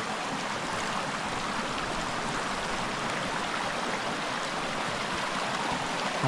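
Steady rush of a mountain stream, Painters Run, running high over its cascades after heavy rain.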